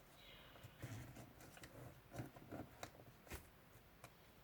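Faint paper rustling and a few soft crisp clicks as a sheet of origami paper is handled and creased.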